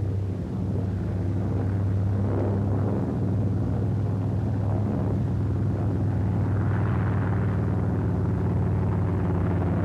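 Grumman TBF Avenger's Wright R-2600 twin-row radial engine droning steadily as the plane flies a low approach.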